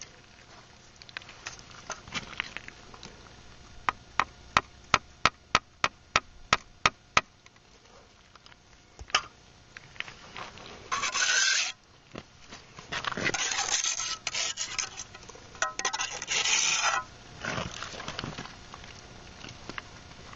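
Hand masonry work on concrete block close by: a quick run of about a dozen sharp, evenly spaced taps, then several bursts of gritty scraping, each a second or two long.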